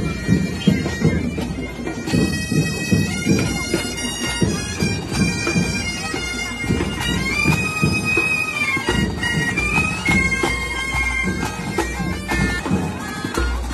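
Marching band of drums and reed pipes playing: a piercing pipe melody over steady drum beats.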